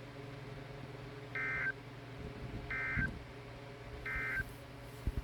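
NOAA Weather Radio SAME end-of-message data bursts: three identical short, warbling digital tone bursts about a second and a half apart, marking the end of the warning broadcast. They sound over a faint steady hum of the radio.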